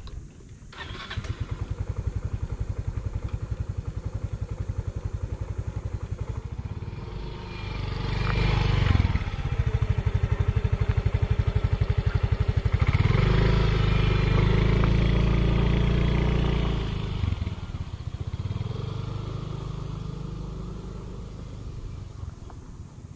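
Small motor scooter's engine starting about a second in, running, then revving up twice as it pulls away under several riders, its sound fading as it rides off into the distance.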